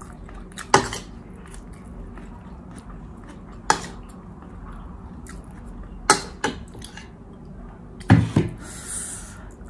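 Cutlery clinking against a plate during a meal: about six sharp clinks, spaced a few seconds apart, with two coming close together near the end, followed by a brief hiss.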